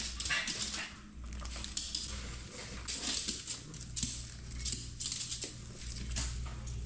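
A small dog's claws clicking and paws tapping on a laminate floor as it hops about, an irregular run of short taps.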